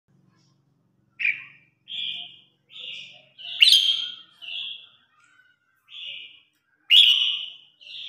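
Red-whiskered bulbul singing its competitive song: a run of short, burry notes about a second apart, each about half a second long. The two loudest, sharpest notes come about halfway through and near the end.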